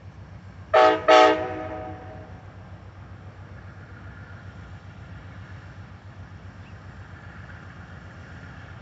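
Train horn sounding two short blasts about a second in, the second a little longer and trailing off, over the steady low rumble of the train.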